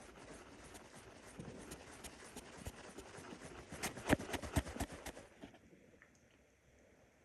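Hungry stomach gurgling and growling: a crackly, bubbling background with a burst of sharp gurgling pops about four seconds in, then quieter.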